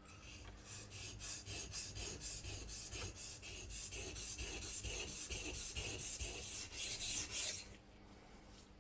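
Steel marking-knife blade, cut from an old saw blade, scraped in quick back-and-forth strokes across the 400-grit side of a whetstone: a rasping hiss that stops abruptly about seven and a half seconds in.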